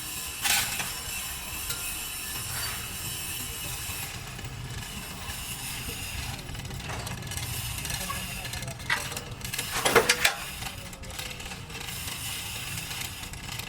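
Metal tools and parts clinking and knocking against metal: a single strike about half a second in and a quick run of several sharp strikes about ten seconds in, over a steady low hum.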